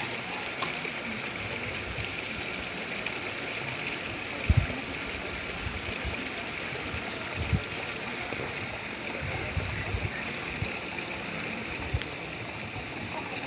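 Steady rushing background noise with a few soft knocks, and no speech.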